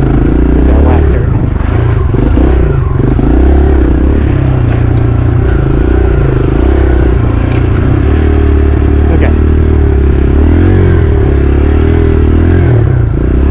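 Dirt bike engine running while riding a trail, the revs rising and falling again and again.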